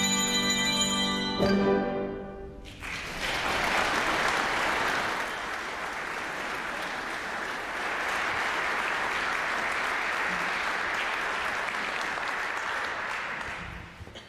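Music ends on a held chord, then a congregation applauds steadily for about eleven seconds, tapering off near the end.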